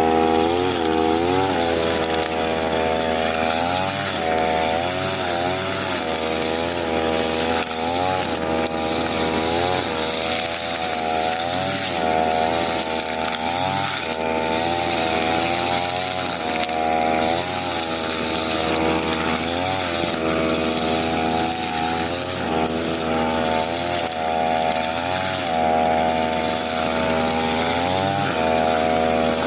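Brush cutter's small engine running at high revs while cutting grass, its note dipping and climbing back again and again as the load changes.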